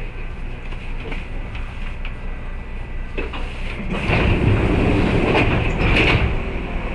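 Kintetsu 8600-series electric train running on the rails: a steady rumble that grows louder about four seconds in, with a few sharp knocks from the wheels over the track near the end.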